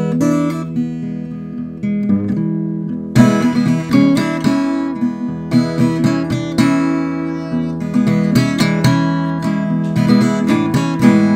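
Acoustic guitar playing a blues instrumental, mixing picked single notes with sharply struck chords.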